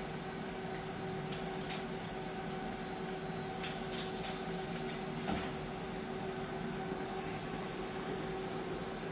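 Steady hiss and electrical hum of room noise in a small room, with a few faint light clicks in the middle as a developed film strip is handled.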